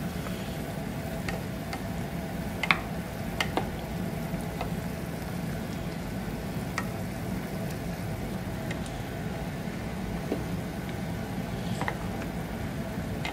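Adobo simmering in a steel pot on a gas stove, over a steady hum. A ladle stirring in the pot makes scattered clicks and taps, the loudest about three seconds in.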